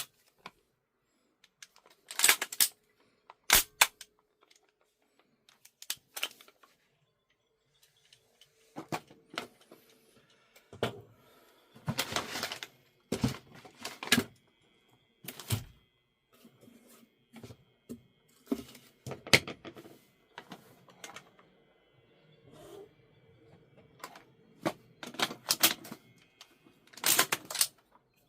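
Irregular sharp mechanical clicks and clacks with pauses between them, the parts of a VFC AR-15 gas-blowback airsoft rifle being worked and handled.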